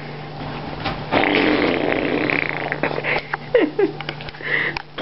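Boxer dog snuffling with its nose pushed into a blanket, with fabric rustling as it digs.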